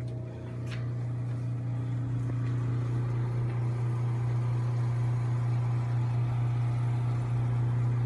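Refrigerator running: a steady low electrical hum from the mini fridge used as a dry-age chamber, with a faint click just under a second in.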